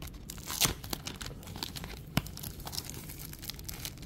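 Clear plastic wrapper of a sealed pack being peeled off its very sticky seal, crinkling and tearing in irregular crackles. Two sharper snaps stand out, about two-thirds of a second in and just after two seconds.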